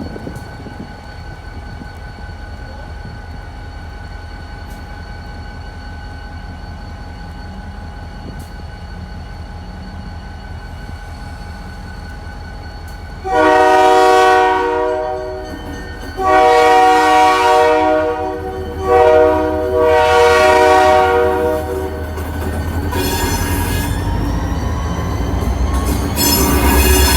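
Diesel freight locomotive rumbling as it approaches, then its multi-tone air horn sounds two long blasts, a short one and a long one: the standard grade-crossing signal. After the horn, wheel squeal and growing rail noise as the train draws close.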